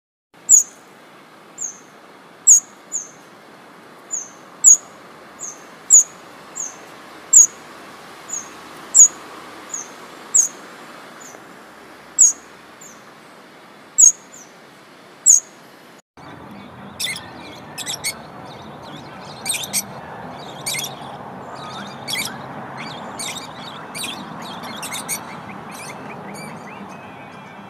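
Small birds chirping: a string of short, sharp, high chip notes about once a second, then, about sixteen seconds in, a busier run of quick chirps from more than one bird over a soft background hiss.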